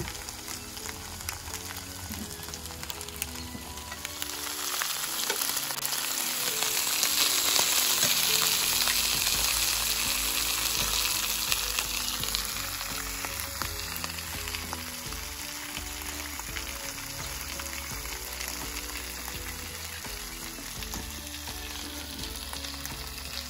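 Napa cabbage, greens and onion sizzling in a tabletop electric grill pan, a steady hiss that grows louder about four seconds in and then eases off.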